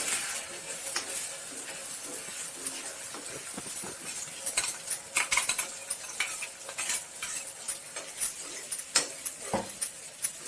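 A spoon stirring and scraping in a kadai as a ground spice paste is sautéed in hot sesame oil, with a sizzle under irregular knocks of the spoon against the pan.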